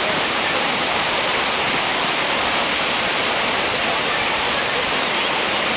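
Shannon Falls, a large waterfall, rushing steadily: a loud, even wash of falling water.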